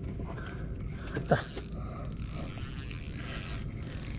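Fishing reel being cranked steadily to reel in line, its gears making a fast, even rattling, with a short rising squeak about a second in.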